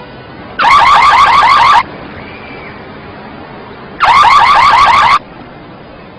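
Anti-theft alarm siren sounding in two loud bursts, each about a second of rapid rising whoops, about seven a second, with a pause of a couple of seconds between them.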